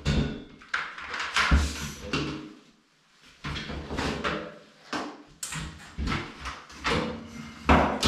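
Handling noise of a vacuum cleaner's corrugated plastic hose and wand being moved and set aside: a series of uneven knocks and bumps, with a short quiet gap about three seconds in.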